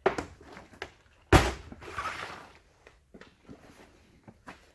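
A heavy thud about a second in, with lighter knocks and rustling around it, as objects are handled and set down on a hard surface.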